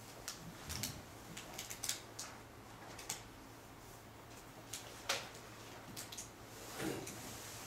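Scattered light clicks and taps of a computer mouse and keyboard being worked, with one sharper click about five seconds in, over a faint steady room hum.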